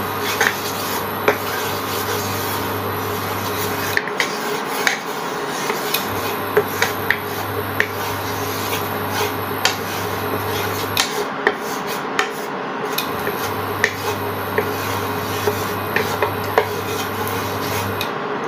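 Wooden spatula scraping and rubbing across a non-stick frying pan as it spreads cooking oil, with scattered light clicks and knocks against the pan.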